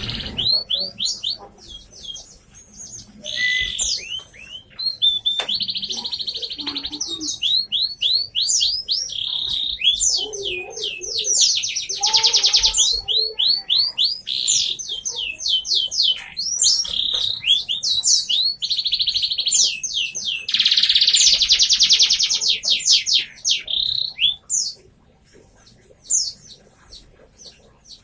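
Domestic canary singing a long, loud song of rapid rising notes and fast buzzing rolls, with short pauses between phrases. It falls silent about three seconds before the end, apart from a few faint chirps.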